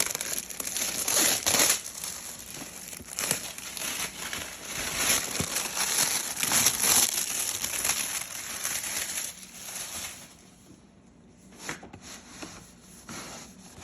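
Plastic packaging crinkling and rustling as it is handled and pulled away from the plier set's case, dense for about ten seconds and then dying down to a few scattered clicks.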